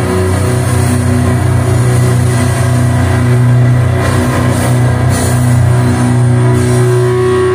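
Loud music at a metal gig: a steady drone of low held notes, with no clear drumbeat.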